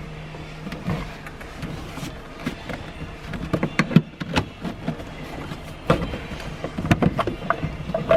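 Scattered clicks, knocks and light rattles of hand tools and plastic dash trim as fasteners are worked loose, busier in the second half, over a steady low hum.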